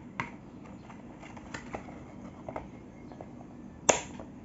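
Plastic toy pieces being handled: a few light clicks and taps, then one sharper click near the end.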